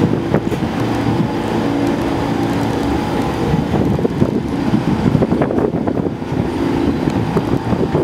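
New York City subway train running past on the track: a steady rumble of steel wheels on the rails with a low, even hum.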